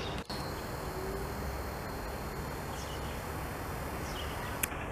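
Steady outdoor background hiss with a few faint bird chirps near the end and a single short click just before it ends.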